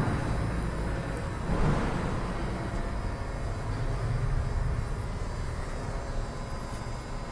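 Stainless steel double ribbon blender running: a steady low drone from its 25 hp drive motor and the turning ribbon agitator.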